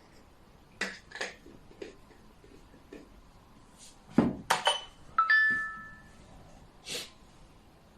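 Xiangqi pieces clacking as they are set down and knocked against each other: a few sharp clacks, then a quick cluster of louder ones. One is a brighter clink that rings briefly.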